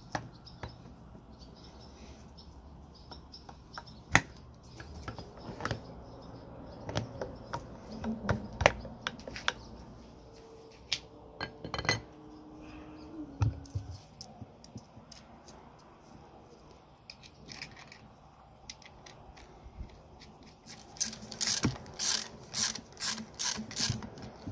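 Steel gears and the cover plate of a chain hoist's gearbox being fitted by hand: scattered sharp metal clicks and clinks, then a quick run of louder clicks near the end.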